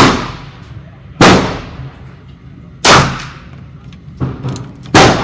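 Four loud gunshots, roughly one to two seconds apart, each trailing off in a long echo. A fainter report comes between the last two.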